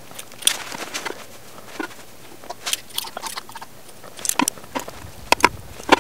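Metal chopsticks clicking against each other and tapping the rim and sides of a metal mess tin as food is set into it: light, sharp clicks in small irregular clusters.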